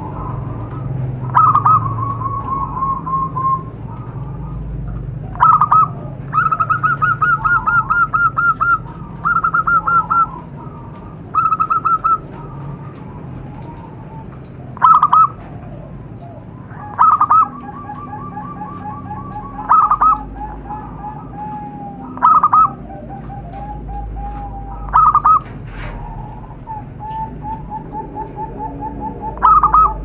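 Zebra doves (perkutut) singing their cooing song. Short loud notes recur every few seconds, each running into a fast rattling trill of coo notes. From about halfway through, a second, lower trill runs alongside the first.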